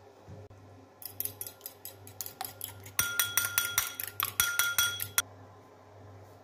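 Metal fork beating an egg in a ceramic bowl: rapid clinks of the tines against the bowl, several a second, growing louder about halfway through and stopping suddenly near the end.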